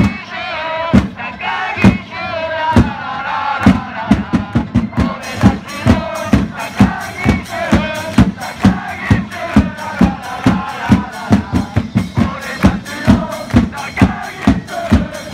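Football supporters' crowd singing a player chant in unison, ending on a "la la la" refrain, over a drum beat. The drum strikes about once a second at first, then quickens to about three beats a second after about four seconds.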